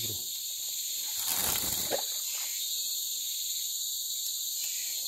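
Steady, high-pitched chorus of forest insects. A brief rustle comes about a second and a half in.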